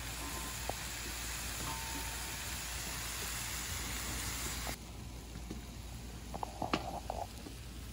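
Chicken, peppers and onions sizzling on a large round griddle: a steady frying hiss. About halfway through it drops abruptly to a quieter hiss with a few light clicks.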